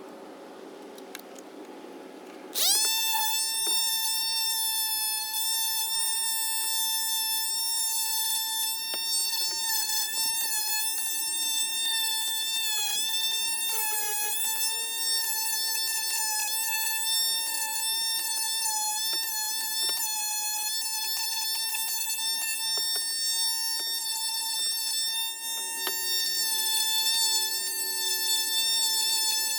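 Small electric power sander switched on about two and a half seconds in, its motor quickly spinning up to a steady high-pitched whine that wavers a little as it works the wood.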